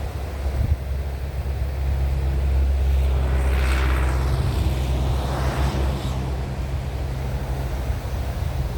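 A passing vehicle's engine noise swells and fades over about three seconds near the middle, over heavy wind buffeting on the microphone.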